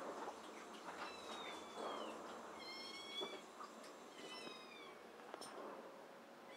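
Young Abyssinian-mix kitten mewing three times, high and thin, the first and last calls falling in pitch, with rustling from it being handled.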